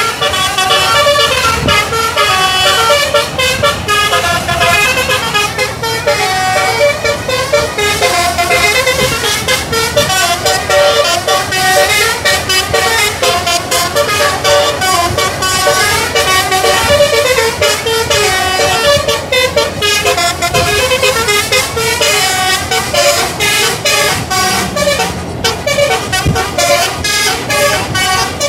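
A bus's multi-trumpet telolet (basuri) air horn playing one tune after another without a break, its notes stepping quickly up and down in pitch.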